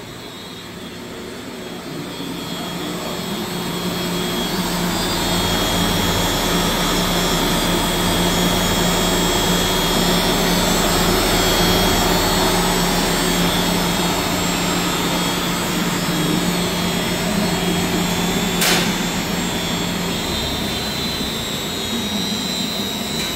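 Weiler Omni V220 meat grinder's electric grind motor and auger gearmotor running at their fastest speeds under variable-frequency-drive control: a steady machine hum with a high whine, growing louder over the first four seconds. A single sharp click comes about 19 seconds in, and the low hum drops away shortly after.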